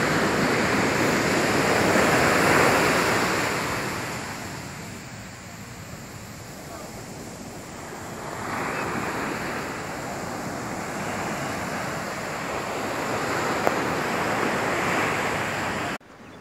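Sea surf breaking and washing up a sandy beach, swelling and ebbing with each set of waves: loudest a couple of seconds in, easing to a lull, then building again about eight seconds in. It cuts off suddenly near the end.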